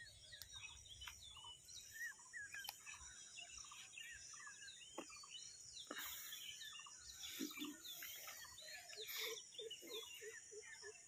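Quiet rural outdoor ambience: many small birds chirping on and off, over a steady high hiss. Near the end comes a quick run of low, evenly repeated call notes, about four a second.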